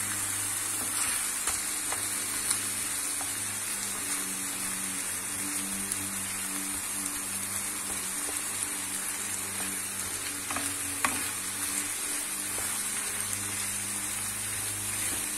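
Ground meat and onions sizzling steadily as they fry in a pan, stirred and scraped now and then with a wooden spatula.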